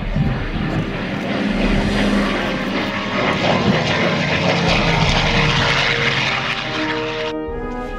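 North American P-51D Mustang's Packard Merlin V-12 engine and propeller in a close flypast, building to its loudest about halfway through. The engine sound cuts off suddenly near the end, where brass music comes in.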